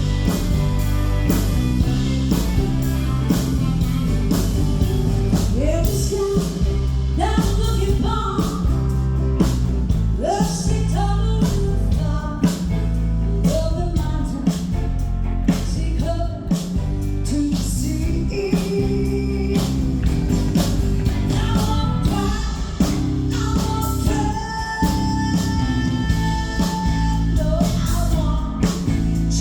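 Live band music: a singer over guitar, bass and drums with a steady beat.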